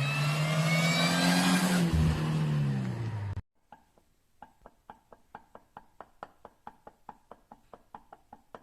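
Supercharged Mercedes SLK R170 engine revving up and dropping back with a whine, then, after a cut, a steady rapid clacking repeating several times a second. The clacking comes from the supercharger's worn needle bearings, which have play and need replacing.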